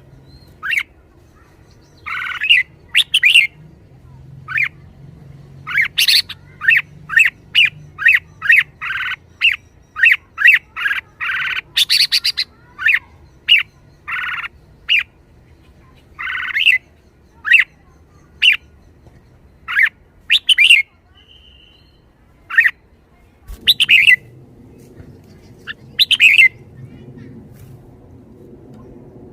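Red-whiskered bulbul calling: a rapid run of short, sharp notes, packed close together for the first half and then coming more sparsely.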